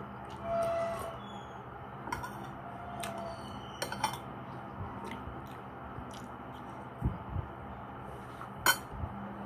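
A metal spoon scraping and clinking against bowls as rice and soup are scooped up: scattered light clicks, two soft knocks about seven seconds in, and the sharpest clink near the end, over a steady low hum.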